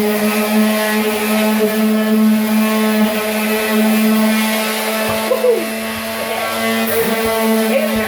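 Electric orbital sander running at full speed, its motor giving a steady high hum, as it sands plaster joint compound on sheetrock. The pitch wavers briefly a few times partway through.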